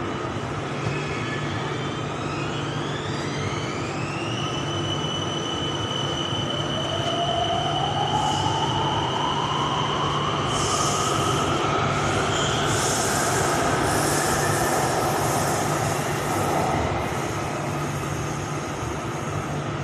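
Electric Skytrain pulling away from a station, heard from inside the car: the traction motors give a whine that climbs in pitch over the first few seconds and then holds, while a second lower whine rises slowly as the train gathers speed. A high hiss from the wheels on the track comes and goes in the middle, over a steady low rumble.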